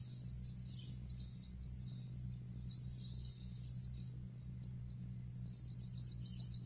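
Small birds chirping in quick trains of short, high notes that come and go, over a steady low hum.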